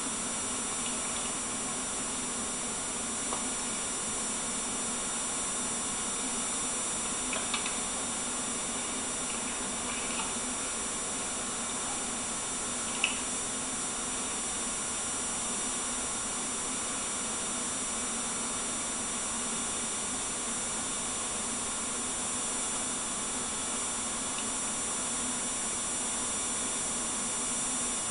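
Steady hiss and low hum with faint high-pitched whines, broken by a few faint ticks and one sharper click about thirteen seconds in.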